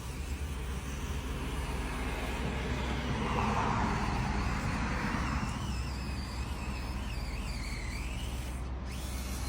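Small electric motor and gearbox of an Axial SCX24 1/24-scale RC crawler whining as it drives, the pitch wavering up and down with the throttle, over a steady outdoor background hum that swells for a couple of seconds midway.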